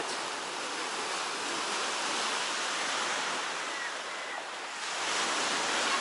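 Baltic Sea waves washing onto the shore: a steady rush of surf that swells a little near the end.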